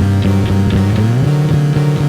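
Loud electronic music with a heavy, sustained bass line and a steady beat; the bass note slides upward in pitch about a second in.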